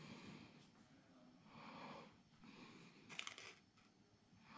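Quiet breathing close to the microphone, a soft breath every second or so, with one short, sharper sniff-like sound about three seconds in.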